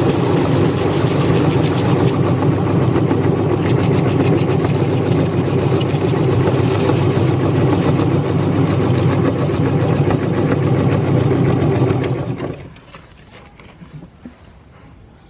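Electric meat grinder running with a steady motor hum, with a dense crackle over it as it grinds a large crunchy cookie. The motor stops about twelve seconds in.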